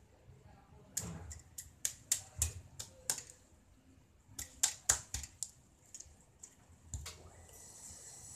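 Kitchen knife tapping and scraping on a spiny lobster's shell against a wooden cutting board: a run of sharp, irregular clicks and knocks, thickest in the middle, with one more knock near the end.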